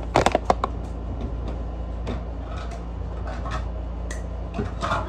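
Kitchen things being handled on a counter: a quick cluster of knocks and clicks at the start, then scattered light taps, over a steady low hum.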